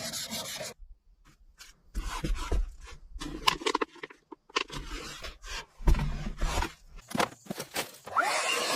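Stiff brushing and scraping on the old car's bodywork in short stretches with brief pauses, as moss is brushed off. A steady hiss starts near the end.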